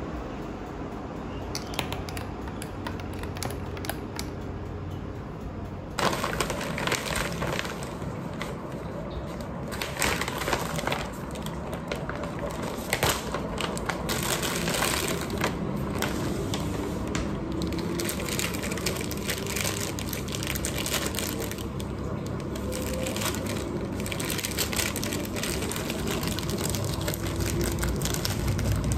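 Plastic food packaging crinkling and crackling as a frozen corn dog's wrapper is pulled and torn open. The crinkling starts suddenly about six seconds in, after a quieter stretch with a few light clicks.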